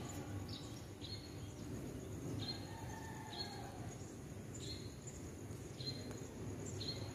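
A small bird chirping over and over, short high chirps roughly once a second, above a low steady background rumble.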